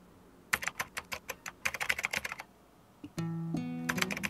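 Computer-keyboard typing sound effect: a quick run of key clicks lasting about two seconds. After a short pause, acoustic guitar music starts about three seconds in, with more typing clicks over it.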